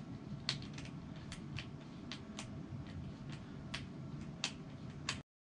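A dozen or so small, sharp clicks at uneven spacing as a Phillips screwdriver tightens down a bolt on a kayak seat's frame. The sound cuts off abruptly near the end.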